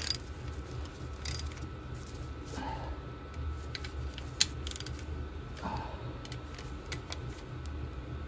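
Small socket ratchet clicking in short, irregular runs as the sump-plate bolts are run in, over a steady low hum.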